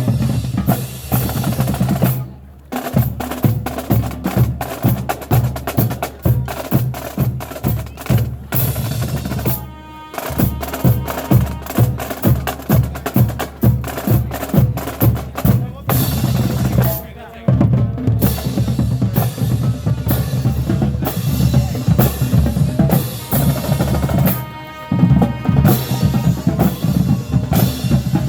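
Marching band drumline playing a cadence: fast snare drum rolls and rhythms over bass drums. The phrase repeats about every seven to eight seconds, each time with a brief pause.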